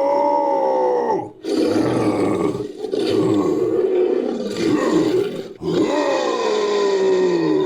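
Made-up creature sound effect mixed from big-cat roars and a human voice: several drawn-out roars with short breaks between them, the first and last falling in pitch.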